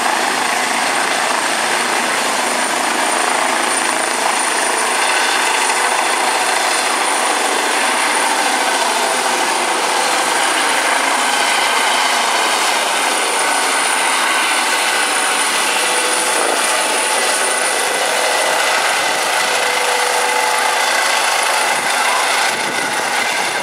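Eurocopter EC135 air ambulance helicopter lifting off and climbing away overhead: steady rotor and turbine noise with a high, steady turbine whine.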